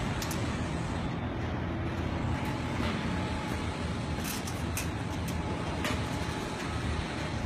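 Steady low background rumble, with a few light clicks scattered through it.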